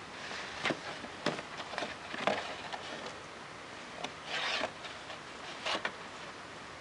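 Cardboard tissue box scraping and knocking on carpet as a kitten with her head stuck inside claws and wrestles with it: a series of short scratchy scrapes and bumps, with a longer rasping scrape about four and a half seconds in.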